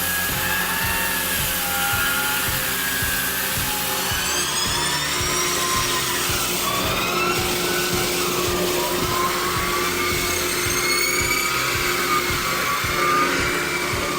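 Background music with a steady beat, over a machine's whine that rises and falls in pitch.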